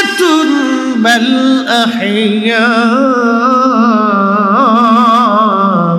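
A man chanting a Quran verse in melodic recitation style, holding long notes with wavering ornaments. The last note drops slightly in pitch near the end.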